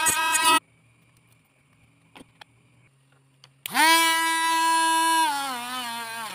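A homemade mini drill's small electric motor spins up with a whine about three and a half seconds in and runs at a steady pitch. Its pitch then sags as the spinning red disc is pressed against a clear plastic part, loading the motor. Before that, a short bit of background music ends in near silence with a couple of faint clicks.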